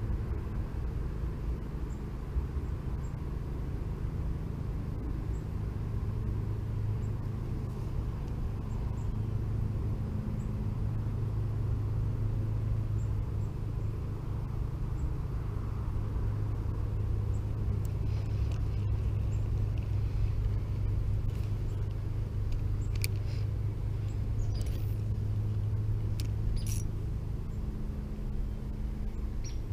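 Steady low outdoor rumble, with a few light clicks in the second half.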